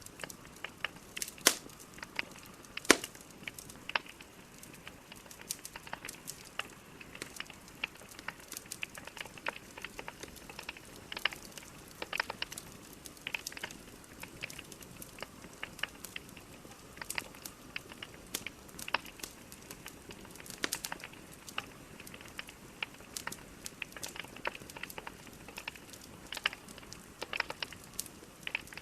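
Wood fire crackling, with irregular sharp pops and snaps from the burning logs over a low hiss, and two louder snaps a few seconds in.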